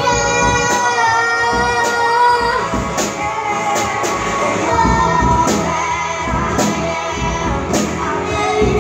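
Children singing through microphones along with a rock song, with a steady beat about once a second.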